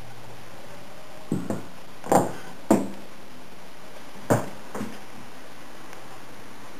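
Footsteps in a small room: about six short knocks at irregular spacing, three of them noticeably louder, over a steady hiss.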